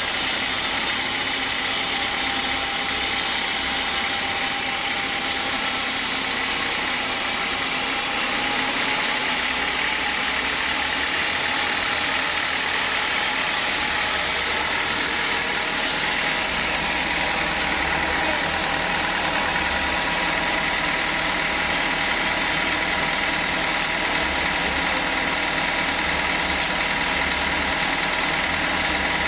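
Sawmill saw running steadily as teak is sawn, a constant mechanical whine with a steady high tone over machine noise.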